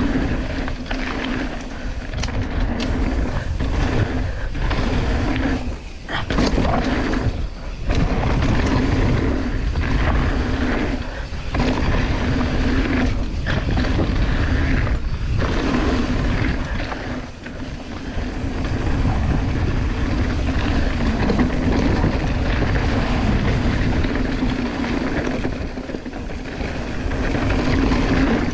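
Mountain bike riding fast down a dirt and gravel trail: continuous tyre noise and rattling of the bike over the ground, with heavy wind on the microphone, briefly dropping away now and then.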